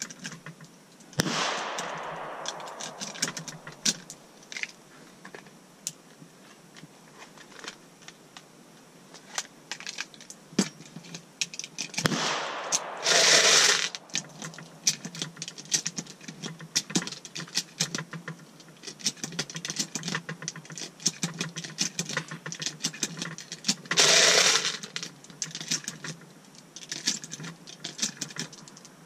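A single gunshot about a second in, its echo trailing off over the next two seconds, then a scatter of light clicks and rattles close to the microphone, broken twice by a louder rustling burst of about a second, near the middle and about three-quarters of the way through.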